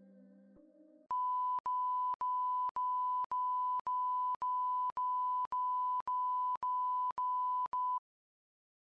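A TV colour-bars test tone, one steady high pitch chopped into about a dozen even beeps, roughly two a second, with a small click at each break, ending abruptly near the end. Soft ambient music fades out in the first second before the beeps start.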